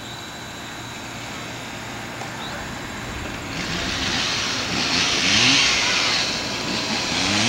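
An engine running and revving up several times, growing louder, with a harsh hiss joining in about halfway through.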